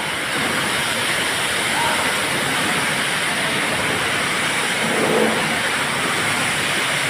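Steady, even mechanical noise of heavy machinery handling granite stone, with an engine running and stone going onto a conveyor belt.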